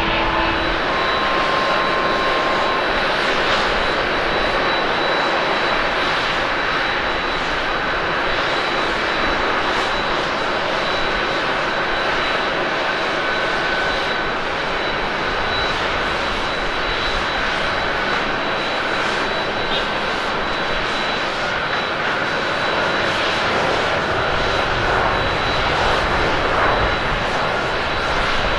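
Rolls-Royce Trent turbofans of a twin-engine widebody airliner rolling on the runway: a steady jet roar with a thin high whine over it.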